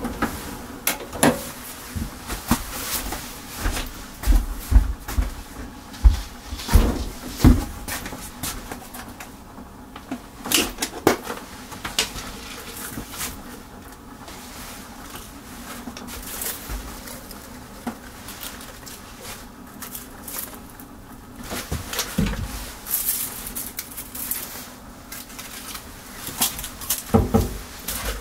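Kitchen handling sounds: irregular clicks, taps and knocks of dishes, utensils and food being set out on plates, over a steady low hum.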